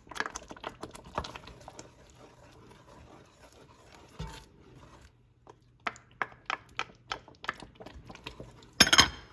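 A wooden spoon stirring thin sauce in an enamelled cast-iron Dutch oven, working in freshly added tomato paste, with irregular clicks and scrapes as it knocks against the pot's bottom and sides. There is a quieter pause in the middle and a louder clatter near the end.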